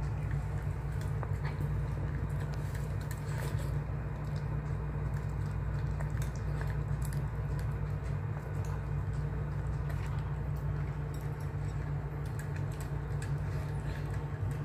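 A dog eating wet food from a bowl: wet chewing and lapping with many small scattered clicks, over a steady low hum.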